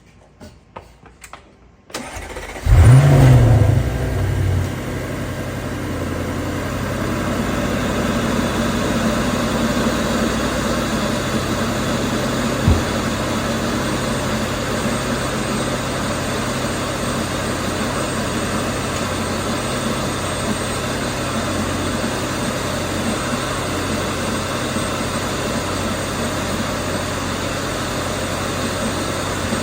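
Audi C8 RS6's twin-turbo V8, fitted with an APR carbon-fibre intake and turbo inlets, starting up: a few faint clicks, then about two seconds in it catches with a loud flare of revs that drops back within a couple of seconds to a steady idle. One brief sharp tick about twelve seconds in.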